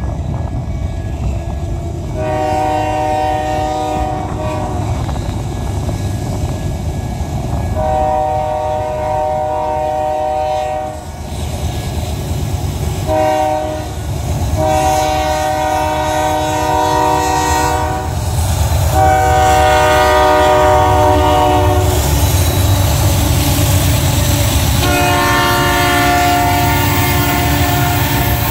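Diesel freight locomotive's multi-note air horn sounding a series of long blasts with one short one, warning for the grade crossing, over a low rumble of locomotive engines. The rumble grows louder toward the end as the locomotives and loaded hopper cars roll past, with wheel clatter on the rails.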